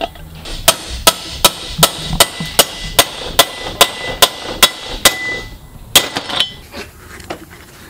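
Hammer striking a steel bearing race driver to drive a new pinion bearing race into a Subaru R180 rear differential housing: about a dozen sharp metal-on-metal blows, evenly spaced at roughly two and a half a second, then a pause and one more blow, with a few lighter taps after.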